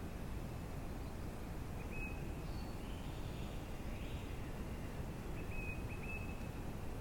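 Steady outdoor woodland background noise, with a songbird giving short high whistled notes about two seconds in and again as a quick series a little past five seconds.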